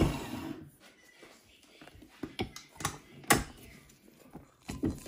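Stand mixer with dough hook switched off and running down to a stop, then a few sharp clicks and knocks as the mixer head is raised and the dough is handled in the stainless-steel bowl.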